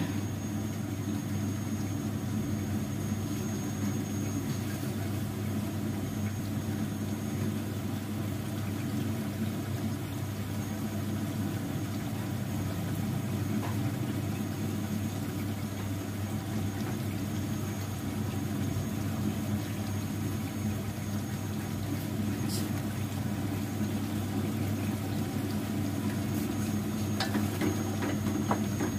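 A steady low mechanical hum over masala frying in a pot on a gas stove. Near the end a spoon clinks and scrapes in the pot as it is stirred.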